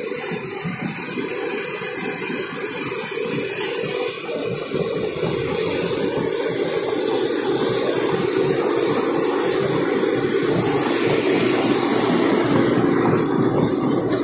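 Komatsu PC195 crawler excavator travelling on its steel tracks: the diesel engine running steadily under a dense clatter of the tracks, growing louder as the machine comes closer.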